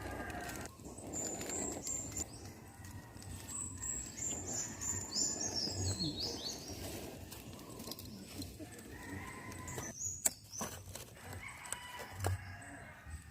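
Outdoor bird sounds: chickens calling, with small birds chirping in high trills through the first half. A few sharp clicks near the end.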